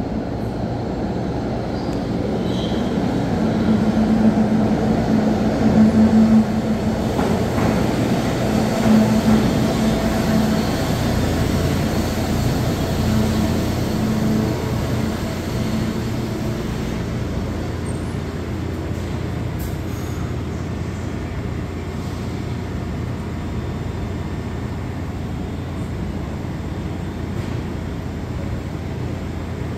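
SEPTA trolley and subway cars running through an underground station: a steady, echoing rumble with a low motor hum, loudest from about four to ten seconds in, then settling.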